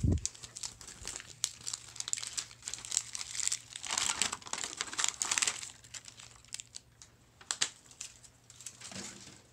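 Toy packaging wrappers crinkling and rustling as they are handled, busiest and loudest in the middle, thinning to scattered crackles near the end.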